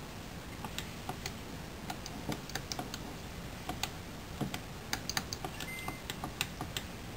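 Plastic buttons of a game controller clicking irregularly, several clicks a second in uneven clusters, over a faint steady low hum.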